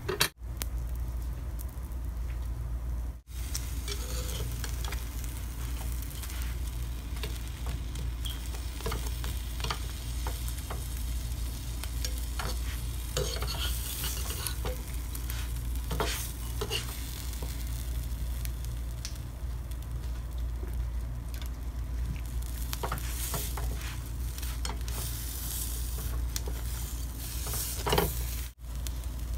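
Egg toast sizzling in a nonstick frying pan, with a metal spatula scraping and tapping against the pan now and then over a steady low hum.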